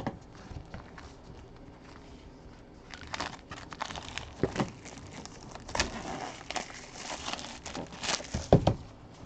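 Plastic shrink-wrap being torn and peeled off a trading card box, crinkling and crackling unevenly with a few sharper snaps, starting about three seconds in.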